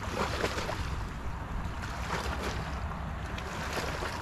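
Wind rumbling on the microphone over shallow water lapping at a rocky shore, with a few small splashes and knocks.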